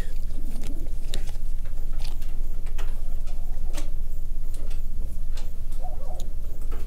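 A steady low electrical hum with faint, irregular clicks and ticks scattered through it.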